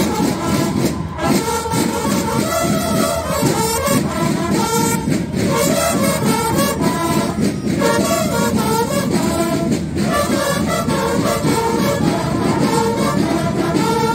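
Brass marching band, trumpets among its instruments, playing a tune together while marching.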